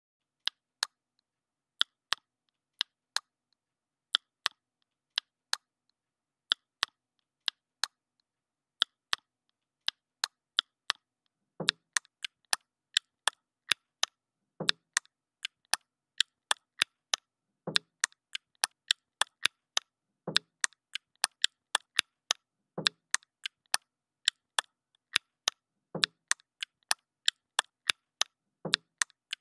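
Sharp clicks over dead silence, at first in pairs about a second apart, growing quicker and denser. About twelve seconds in, a deeper thump joins them every three seconds or so.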